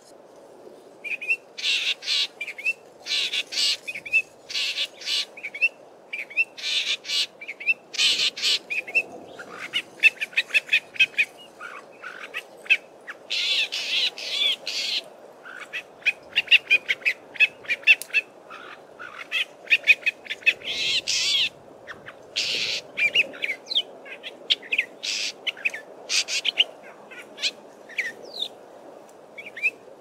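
Male Southern Fiscal (Common Fiscal shrike) singing a long series of short, scratchy phrases with brief pauses between them. Partway through, the song includes its imitation of Red-necked Spurfowl calls.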